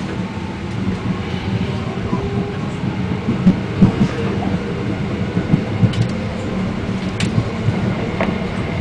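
Seoul subway train running, heard from inside the passenger car: a steady low rumble, with occasional sharp knocks from the wheels over the track.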